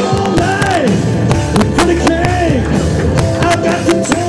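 Live band playing rock music: piano, drum kit and guitar, with a voice singing a bending melody over them.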